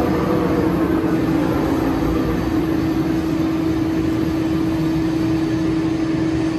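Schiess Froriep vertical turret lathe running with a steady hum, its large table spinning down and coming to a stop near the end.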